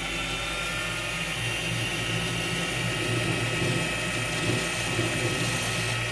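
Metal lathe running steadily, its motor and spindle whirring with a continuous high whine over a low hum.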